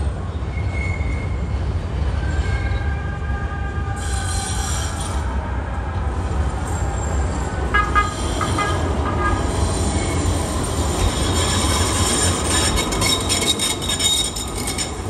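Low-floor tram running with a steady low rumble; high-pitched wheel squeal starts about four seconds in and is loudest near the end, with a few sharp clicks around the middle.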